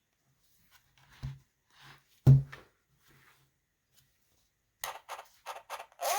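Knocks and taps from a cardboard sound book being handled, the loudest about two seconds in. Near the end comes a quick run of about six short, sharp bursts.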